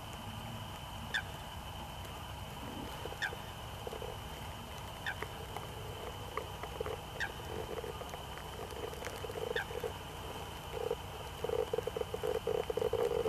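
Animal calls: a short falling chirp about every two seconds, and trains of rapid low pulsed calls that become busier and louder near the end, over a steady high-pitched tone and low background rumble.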